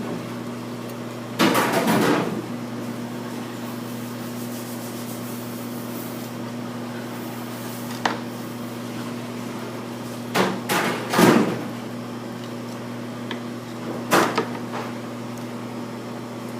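Knife work and handling of a raw chicken on a cutting board: a few short knocks and scuffs, the loudest about a second and a half in and around eleven seconds in, over a steady low hum.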